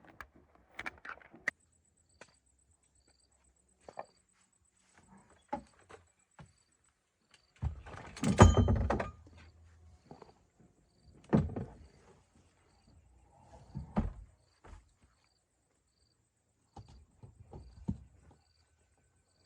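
Irregular knocks and thuds, the loudest a heavy thud about eight and a half seconds in and others about eleven and a half and fourteen seconds in, over a faint high ticking that repeats evenly about twice a second.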